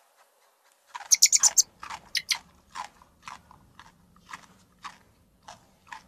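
A white rabbit chewing leaves: crisp, crunching bites, a quick run of them about a second in, then one every half second or so.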